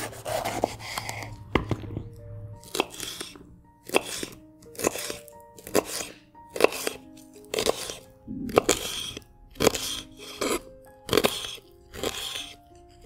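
Chef's knife cutting through a raw red bell pepper onto a bamboo cutting board: a crisp crunch and a knock on the board with each stroke, about once a second.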